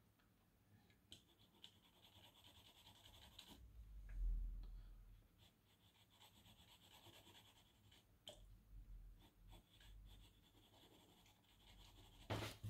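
Faint scratching of a pencil's graphite lead shading on paper. A dull low thump comes about four seconds in, and a couple of sharp clicks near the end.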